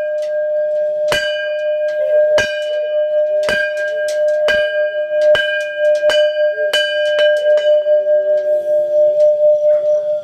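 A bell struck about nine times, the strikes coming faster and faster, then left to ring on with a wavering hum. This is the signal for monks to set out on their alms round.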